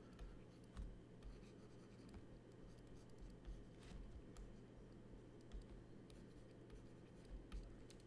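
Faint scratching and tapping of a stylus on a graphics tablet as pencil strokes are drawn, with a few soft clicks over a low steady hum.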